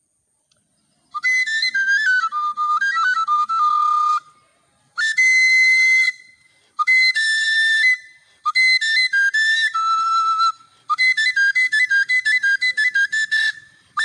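A high solo melody with a whistle-like tone, coming in after about a second of silence and played in five short phrases with brief gaps between them, the notes stepping down and back up.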